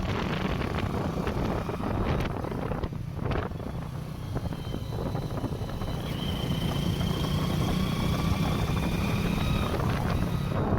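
Motorcycle running on the move, with wind rushing over the microphone. A thin high whine rises slightly in pitch through the second half.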